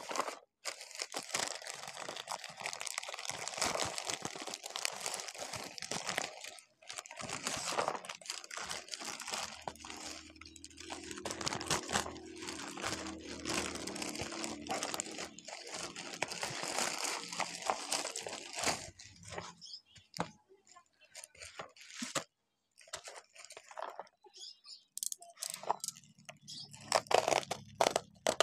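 Plastic courier mailer bag and bubble wrap crinkling and rustling as they are handled and pulled open, a dense crackle that thins to scattered crackles after about two-thirds of the way through.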